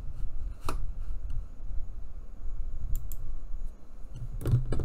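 Light clicks and taps from handling craft materials on a cutting mat: one about a second in, another about three seconds in and a short cluster near the end, over a low rumble of handling noise.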